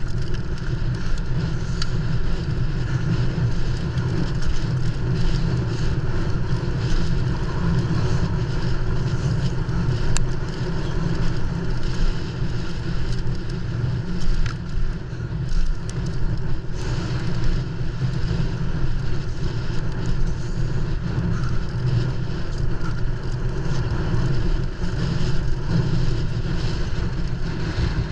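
Mountain bike riding at speed: steady wind rush and rumble on the action camera's microphone, with tyre and frame noise and a few sharp clicks or rattles.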